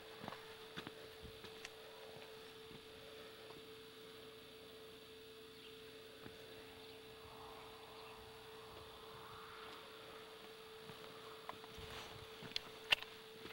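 Faint steady hum at one pitch, with a light hiss beneath it. A few faint clicks come near the start, and a few sharper ones come shortly before the end.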